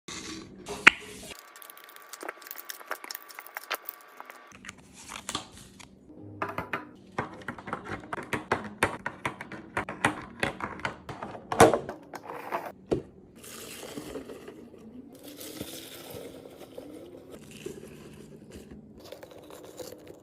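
Packaging and containers being handled while restocking a fridge: plastic crinkling and tearing with many clicks, taps and knocks as items are set down, the sharpest knocks about a second in and around twelve seconds in. Faint music runs underneath.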